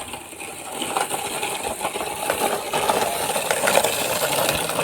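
Toy construction vehicles working in dirt and gravel: a dense, busy clatter of small stones and hard plastic, with scraping.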